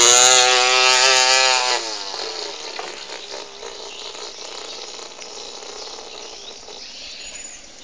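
A child imitating a revving chainsaw with the voice: one shrill, steady engine-like note held for about two seconds, dipping as it cuts off. A quieter steady background hiss follows.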